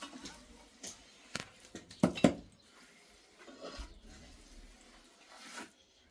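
A few scattered knocks and clatters, with two louder thumps close together about two seconds in.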